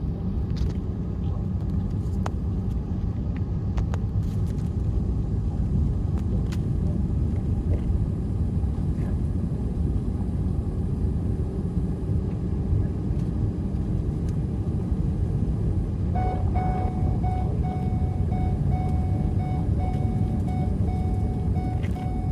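Four-wheel-drive vehicle driving slowly into floodwater: a steady low rumble of engine and wheels, with a few faint knocks. About sixteen seconds in, a steady high tone comes in and holds.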